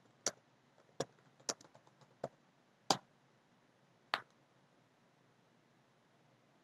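Computer keyboard keystrokes: about seven separate clicks spread over four seconds as a terminal command is typed and entered.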